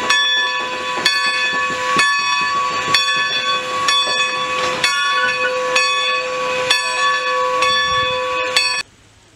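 Standing steam locomotive, Strasburg Rail Road No. 90, a 2-10-0 Decapod, hissing with a steady whine and a sharp knock about once a second. The sound cuts off abruptly near the end.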